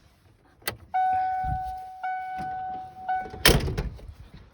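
A switch click, then the truck's steady electronic warning tone sounding in three stretches with short breaks, the typical headlights-on warning after the lights are switched on. It stops, and a truck door slams shut loudly about three and a half seconds in.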